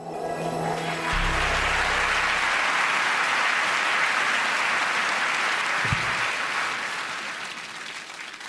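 A short musical sting with a held low note for the first couple of seconds, giving way to a large theatre audience applauding, the applause slowly dying down near the end.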